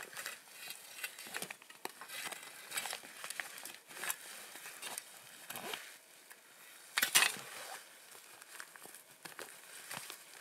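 Irregular rustling and crunching of a backpack, its straps and stiff winter clothing being handled by someone kneeling in snow, loudest about seven seconds in.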